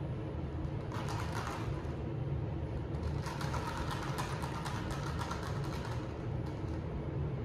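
Steady low hum inside an elevator car, with bursts of rustling handling noise about a second in and again from about three to six seconds.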